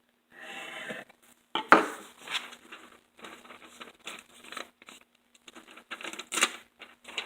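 Scissors cutting a sheet of loose-leaf paper, with paper rustling and scraping in irregular strokes. The loudest stroke comes about a second and a half in.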